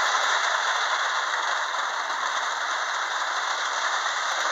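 Lionel 8203 toy steam locomotive running on its track while hauling seven cars: a steady rattling whir of the electric motor, gears and wheels on the rails.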